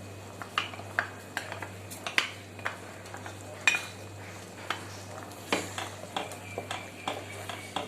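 A spoon or ladle stirring tamarind water into a pot of pepper curry, clinking irregularly against the pan about twice a second, over a steady low hum.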